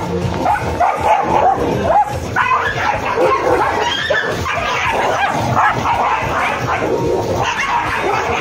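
Dogs fighting: a continuous tangle of barks and yelps from two or more dogs scuffling.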